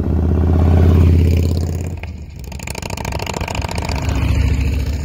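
Big V-twin touring motorcycles pass close by one after the other, their engines rumbling low. The first comes in suddenly and loud, peaks about a second in and fades; a second builds up over the last two seconds.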